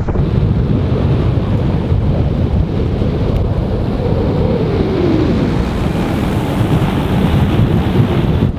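Strong wind of around 30 knots buffeting the microphone, with choppy waves. A faint whine drops in pitch about four seconds in.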